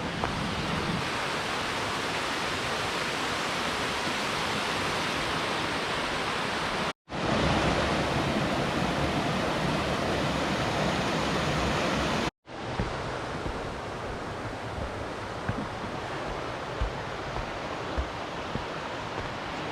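Rushing water from a river tumbling down a series of small waterfalls, a steady even rush, broken twice by a sudden brief gap, and a little louder between the gaps.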